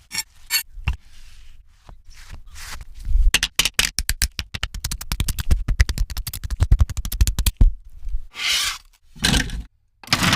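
Kitchen utensil sounds during food preparation: a fast run of sharp taps or clicks for several seconds, then a few short scraping swishes near the end.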